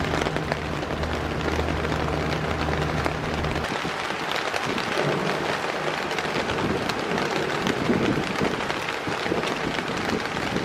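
Heavy rain pattering on a tent during a night thunderstorm, a dense steady noise of drops. A low steady hum sounds under it at first and cuts off about a third of the way in.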